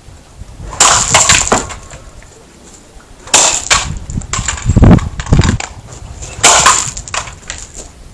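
An alarm clock being smashed: four rounds of hard blows with clattering and cracking, a second or two apart, the third round with deep heavy thuds.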